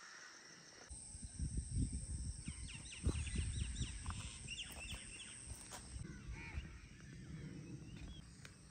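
Birds chirping: a quick run of short, curving calls, then a few more a little later, over a low rumble.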